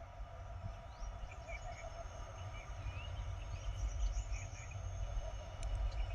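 Birds chirping in short calls over a low, steady rumble, with a faint steady hum beneath.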